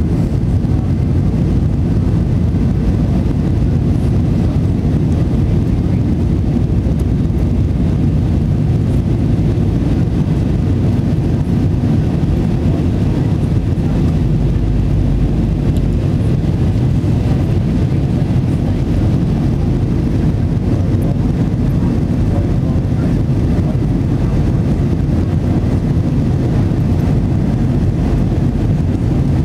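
Steady cabin noise inside an Airbus A319-111 climbing after takeoff: its CFM56-5B turbofan engines and the airflow around the fuselage give an even low rumble with a fainter hiss above it.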